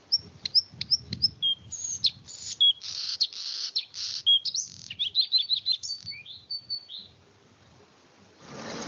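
A bird singing: a rapid, varied run of high, sharp chirps, whistled slides and fast trilled notes that stops about seven seconds in. Just before the end, a steady noise with a low hum starts up.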